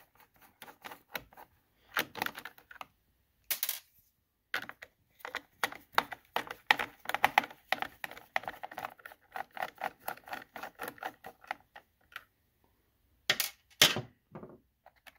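Fast runs of clicking from a hand driver turning the nut on an MS660 clone chainsaw's air-filter holder, with metal parts clinking as the holder is loosened and lifted off, and a few sharper clicks near the end.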